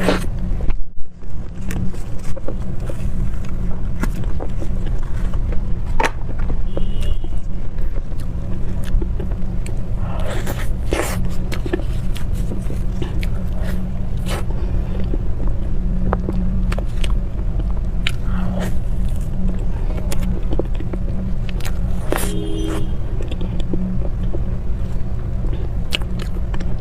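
Soft chewing and bites of cream puffs and cream-filled roll cake, with small scattered clicks, over a steady low rumble.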